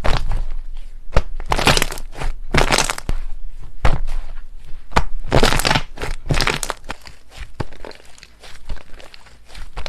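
Slime being pressed and squeezed by hand, giving sharp pops and clicks with a few longer crackling bursts.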